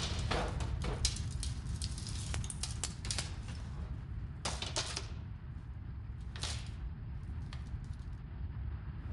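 Earthquake rumble sound effect: a steady deep rumble with scattered crackling and clattering on top. Two louder bursts of crackling come about halfway through and a second or so later.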